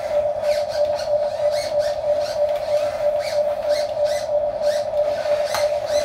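Huina 1550 RC excavator's electric motors and gearboxes giving a steady whine as the boom and bucket swing, with quick clicks and rattles a few times a second.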